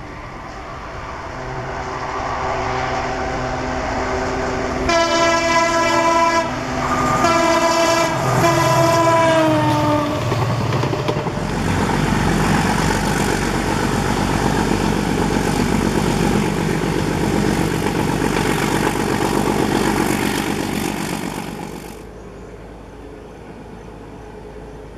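A diesel locomotive approaching with its engine drone growing louder, then sounding three long horn blasts, the last one falling in pitch as it passes. Then a metre-gauge YDM4 diesel locomotive working hard, running loud with its train, until the sound drops away sharply near the end.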